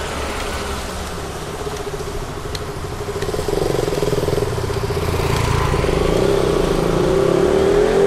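Street traffic with motorcycles passing. An engine hum comes in about halfway through and grows louder, rising slightly in pitch toward the end.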